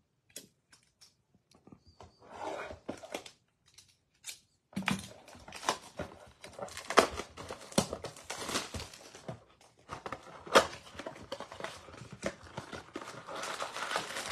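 Plastic wrap crinkling and tearing as a sealed box of trading card packs is opened and the packs are handled. Only a few light clicks at first, then dense crinkling from about five seconds in, with several sharp snaps.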